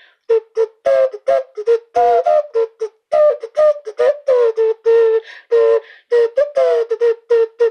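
Short, breathy, flute-like notes blown into a rubber novelty breast held to the mouth, played as a quick staccato tune that keeps returning to one low note with a few brief higher ones.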